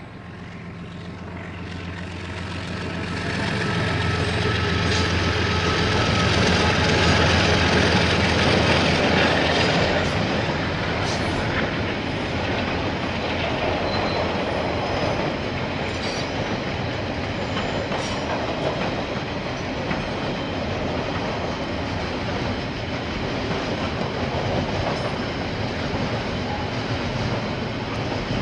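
A diesel-hauled freight train passing: the locomotive's engine hum builds over the first few seconds, then the wagons rumble by steadily with wheels clicking over rail joints and a few brief high wheel squeals.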